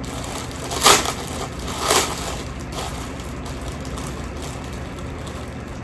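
Rustling and crinkling as items are picked up and handled, with two louder rustles about one and two seconds in and a smaller one shortly after, over a steady low hum.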